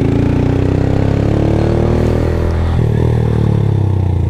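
A 160 cc single-cylinder motorcycle engine pulling the bike along, rising in pitch as it accelerates, dropping briefly at a gear change almost three seconds in, then pulling again.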